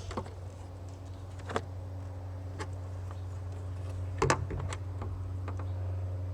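Light clicks and knocks of an LED headlight bulb being handled and pushed into a car's headlamp housing, scattered a second or so apart with the loudest about four seconds in, over a steady low hum.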